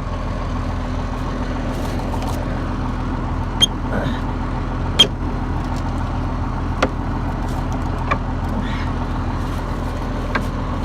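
A combine's engine running steadily, with a few sharp clicks over it.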